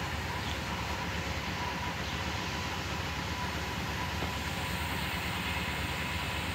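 Steady low rumble of running machinery, with a faint steady whine above it.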